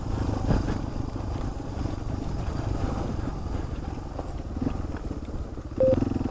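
Off-road motorcycle engine running steadily at low speed, a low, fast-pulsing rumble.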